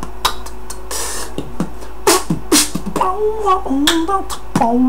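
Human beatboxing: mouth-made kick and snare hits, a hissing snare about a second in, then a hummed melody over the beat from about halfway.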